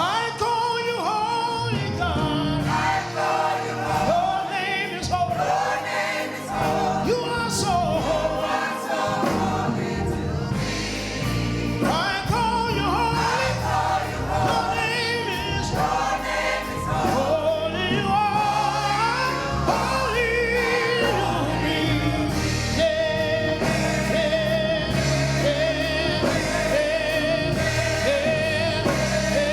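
Gospel choir singing with instrumental accompaniment, with a long held note in the last few seconds.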